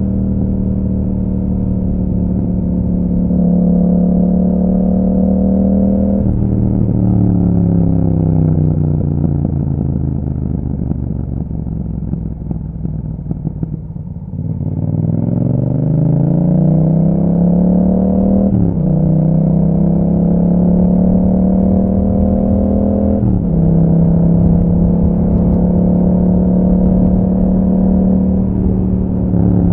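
A 2021 Yamaha MT-07's 689 cc parallel-twin engine running through an Akrapovic exhaust while riding. It holds a steady note, then falls in pitch for several seconds as the bike slows. It then rises again as it accelerates, with brief breaks in the note where gears change.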